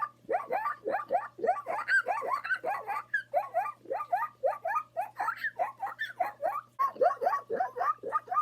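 A man's vocal impression of a zebra's call: a rapid string of short, high, rising yelps, about four a second, broken by two brief pauses.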